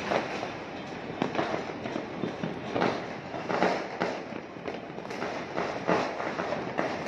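Many fireworks and firecrackers going off at once across a city: a dense, irregular run of pops, cracks and bangs with no pause.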